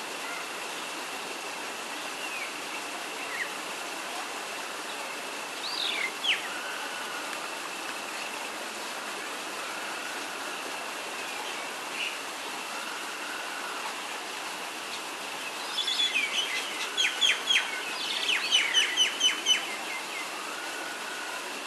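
Birds chirping in the trees over a steady hiss and a faint steady high tone: a single falling call about six seconds in, then near the end a burst of short, bright chirps followed by a quick run of repeated notes.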